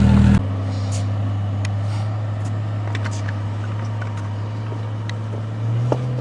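Off-road vehicle engine running at low, steady revs. A louder engine sound cuts off suddenly about half a second in, leaving a steadier hum that rises a little in pitch near the end.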